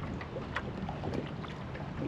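Wind rumbling on the microphone over water around a small boat, with scattered faint ticks.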